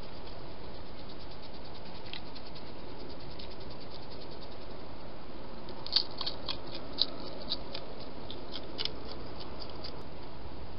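A hedgehog foraging among scattered food on hard ground: sharp, irregular clicks and scratches from about six seconds in, two of them louder, over the steady hiss of a night camera's microphone. Faint, rapid ticking comes before the clicks.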